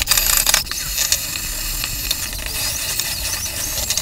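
Wire brush spinning in a drill, scrubbing rust and grime off a miter saw's metal bed: a steady hiss, louder for the first half second, with faint high squeaks near the end.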